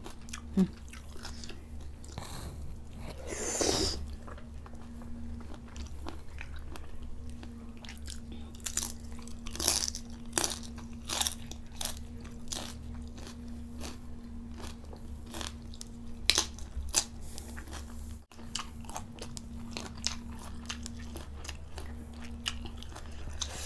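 Close-miked chewing and mouth smacking of raw salmon sashimi dipped in spicy fish sauce: many short wet clicks and smacks, with a longer noisy swell about three seconds in, over a steady low hum.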